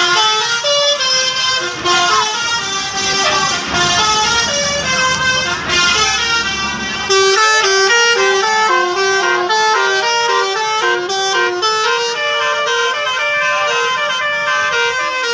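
Bus telolet horns, a set of musical air horns on a bus, playing a quick stepped melody of short notes, with several tones sounding at once. A long falling tone runs through the middle.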